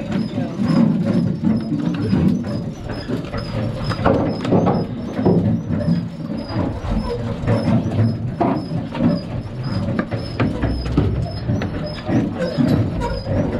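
Busy deck noise on an anchored fishing boat: a steady low rumble with scattered knocks and clatter, and a faint high chirp repeating about twice a second.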